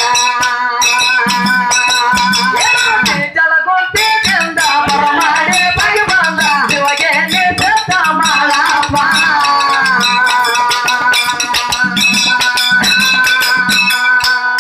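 A seated group playing folk music: hand cymbals clashing in a steady beat with a hand drum, under voices singing long held, wavering lines. The sound drops out briefly about three seconds in, then picks up again.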